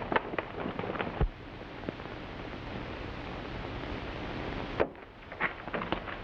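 Steady hiss of an early optical film soundtrack, with a few sharp knocks in the first second and again near the end.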